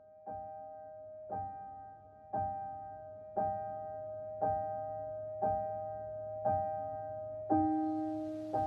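Background piano music: the same soft chord struck about once a second, each ringing out and fading, with a lower note joining near the end.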